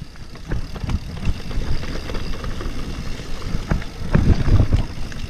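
Mountain bike rolling fast down a rough dirt trail: tyres rumbling over the ground with frequent knocks and rattles from the bike over bumps, heaviest about four seconds in.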